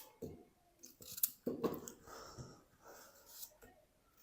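Faint, scattered kitchen handling sounds of potato pieces being cut and put into a blender jug: a few soft knocks and rustles, with one sharper click about a second in.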